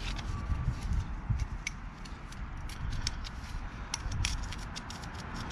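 Scattered small clicks and rubbing from nitrile-gloved hands seating a rubber O-ring in the groove of an aluminium oil filter housing, over a steady low rumble.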